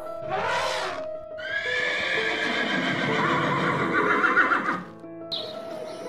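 An elephant trumpeting: a short noisy blast, then one long call lasting about three seconds, over background music.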